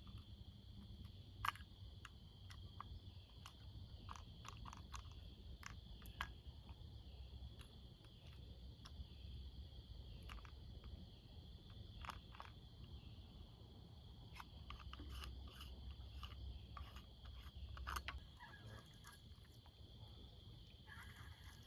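Steady high insect trilling, crickets or similar, with scattered small clicks and taps from handling a fishing reel and line while a tangle is cleared.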